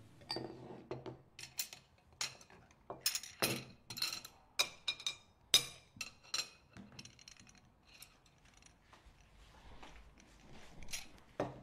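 Ceramic bowls and plates clinking as they are set down on a wooden table, a quick run of knocks with short ringing, busiest in the first half and thinning out after that.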